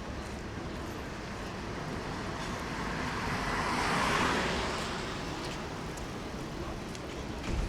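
A car passing on a wet street: tyre hiss swells to a peak about four seconds in and fades away, over steady street noise.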